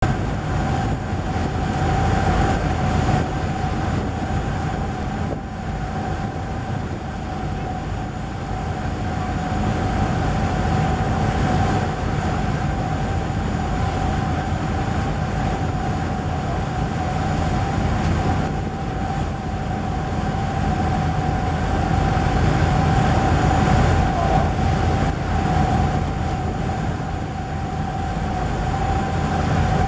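Boat engine running steadily: a continuous low rumble with a steady tone over it.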